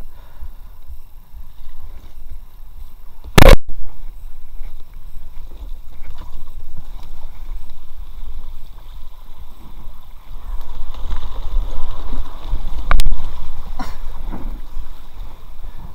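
Inflatable kayak drifting down a shallow brook: water rippling around the hull, a little louder over a riffle near the end, under a low rumble on the microphone. Two sharp knocks, one about three seconds in and one near the end.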